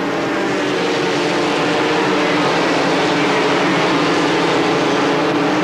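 A pack of Formula 3 race cars running together, their two-litre four-cylinder engines blending into a steady drone of several held tones that slowly grows louder.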